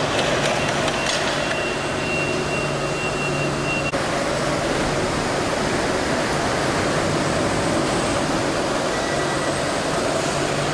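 STILL RX20 electric forklifts running through a large hall: a steady mechanical hum and whir, with a thin high whine for a few seconds near the start.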